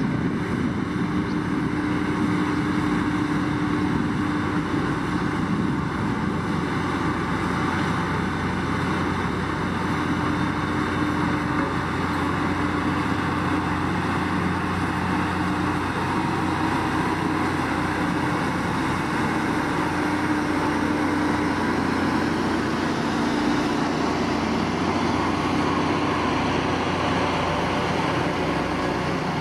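Heavy diesel road-building machinery running steadily: a SANY motor grader pushing and levelling gravel, with a Sakai road roller working close behind. A constant engine drone with a steady hum, no breaks.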